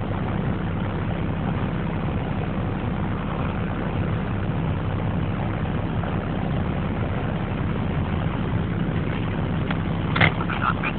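Heavy construction machinery engine running steadily, with a few short metallic knocks about ten seconds in.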